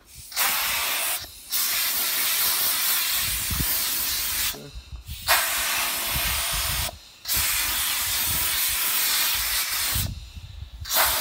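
Compressed-air blow gun hissing in about five long blasts with short pauses between, blowing dust out of a Bobcat 763's engine air filter element.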